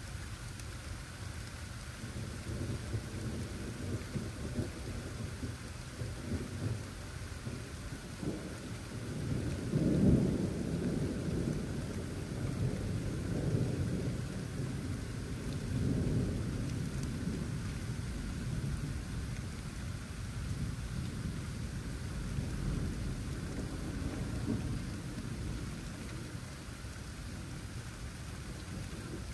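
Steady rain with a long roll of thunder. The rumble builds a couple of seconds in, is loudest about a third of the way through, rolls on in a few further swells, and dies away well before the end, leaving the rain.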